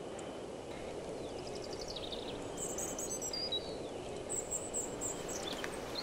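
Outdoor ambience: a steady background hum of environmental noise, with birds chirping in short calls, a cluster about two to three seconds in and another around four to five seconds in.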